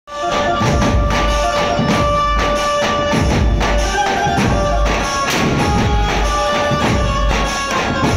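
Street drum troupe playing large double-headed barrel drums with sticks in a fast, driving rhythm, with jingling cymbals and a held melody line over the beat.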